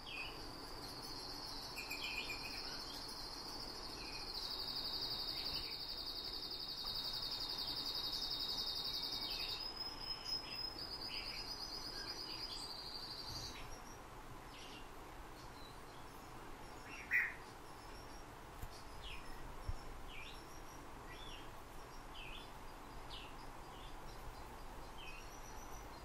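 Canary singing a long, high rolled trill that shifts pitch twice and breaks off about halfway through, followed by scattered short chirps and one louder chirp.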